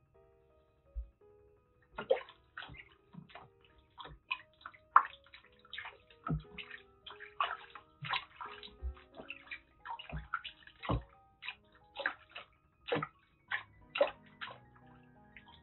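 Water splashing in a plastic basin as hands rinse shampoo off a wet kitten: irregular splashes that begin about two seconds in and stop shortly before the end, over soft background music.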